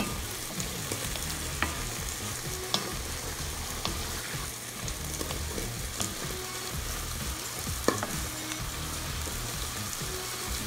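Mixed vegetables sautéing in a hot cast-iron pan, a steady sizzle as a wooden spoon stirs them, with a few sharp knocks from the stirring, the loudest near eight seconds in.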